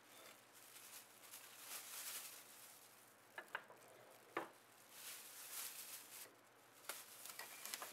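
Faint handling noises as walnut blocks are lifted out of a firebrick-lined electric kiln: a soft scraping rustle with a few light clicks and knocks of wood on brick, the sharpest about three and a half and four and a half seconds in. A plastic bag rustles near the end.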